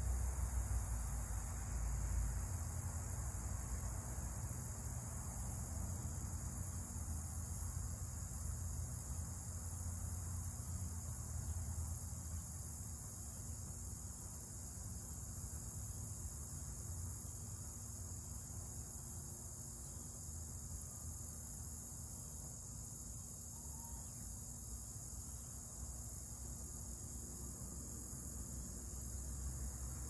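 Crickets chirring in a steady, unbroken high-pitched chorus, with a low rumble underneath.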